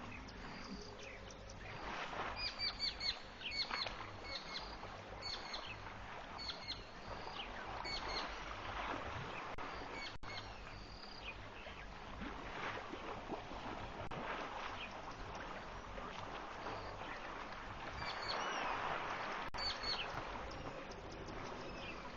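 Birds calling at a waterhole: short hooked chirps repeated in small clusters, over a steady outdoor hiss.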